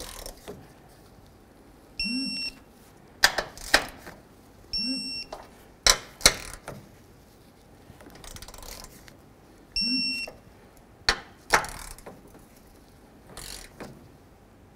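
Digital torque wrench beeping for about half a second each time a strut-mount nut reaches the set 26 ft-lb, three times, with sharp clicks and knocks in between as the wrench and socket are moved from nut to nut.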